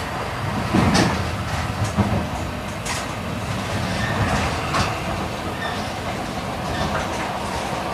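Running noise of an E8 series Shinkansen heard inside the passenger car: a steady low rumble of wheels on rail, with a few irregular sharp clicks.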